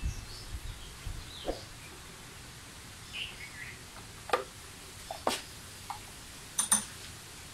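Birds chirping faintly, with a few sharp clicks and knocks from hands working at a scooter's mirror, the loudest a close pair near the end.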